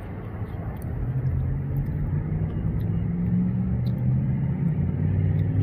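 A motor vehicle's engine running close by: a low, steady hum that grows louder about a second in and then holds.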